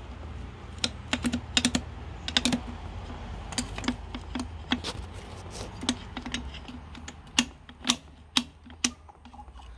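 Irregular small metallic clicks and taps of a hand tool and fingers working at the cover of a Massey Ferguson tractor's power steering filter housing. The clicks come in quick clusters at first, then singly about half a second apart near the end, over a low steady rumble.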